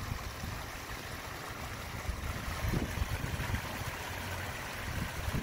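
Flowing stream water, a steady rushing hiss, with an irregular low rumble underneath.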